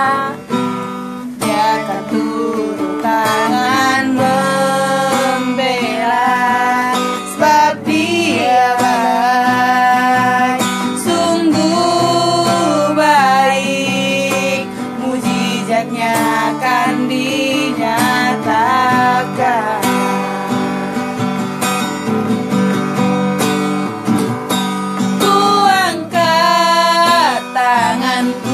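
Two women singing an Indonesian Christian worship song together over guitar accompaniment.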